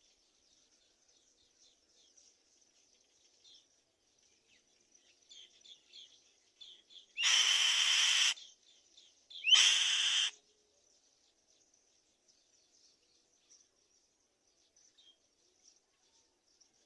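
Black-winged kite giving two loud, harsh screeching calls about a second long each, a couple of seconds apart midway through, over faint high chirping that runs throughout.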